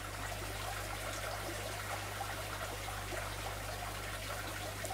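Faint, steady trickle of circulating aquarium water, with a low electrical hum beneath it.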